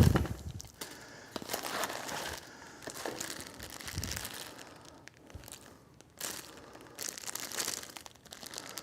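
Small plastic hardware bags crinkling and rustling while the PC case's accessory kit is searched for motherboard standoffs and screws, with a knock at the start and small clicks throughout.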